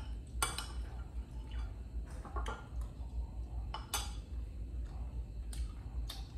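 A spoon or utensil clinking against a dish or bowl about six times at irregular intervals, with a low steady hum underneath.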